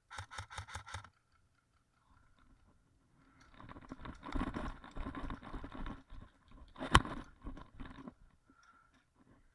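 A quick string of airsoft gun shots lasting about a second, followed by several seconds of rustling and scraping from gear and movement, with one sharp click about seven seconds in.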